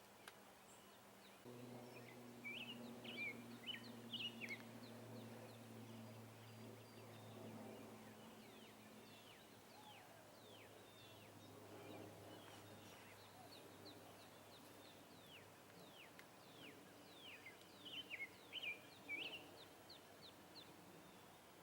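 Faint bird song: bursts of quick downward-sweeping chirps, loudest a few seconds in and again near the end, over a low steady hum that starts about a second and a half in and fades out partway through.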